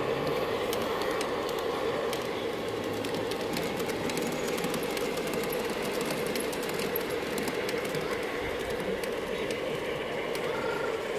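Garden-railway model high-speed train running along the track: a steady motor and gear hum with light clicking of the wheels on the rails.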